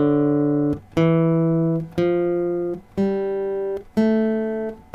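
Acoustic guitar playing an ascending C major scale one plucked note at a time, about one note a second, each note ringing clearly before it is stopped for the next.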